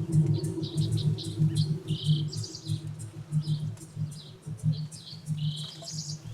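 Small birds chirping, with many short high calls one after another, over a steady low hum that pulses unevenly.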